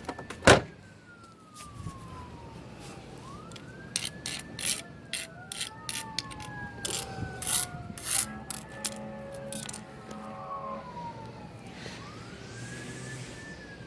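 A distant emergency-vehicle siren wailing, its pitch rising quickly then falling slowly, repeating every few seconds, at times with a second siren overlapping. Sharp clicks and taps, the loudest about half a second in and a cluster of them in the middle.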